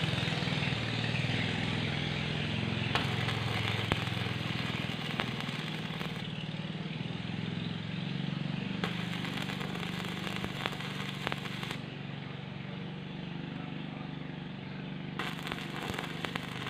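Stick-welding arc with a 2.5 mm electrode crackling and spitting in several short spells as tack welds are struck and broken off, with a steady low hum underneath.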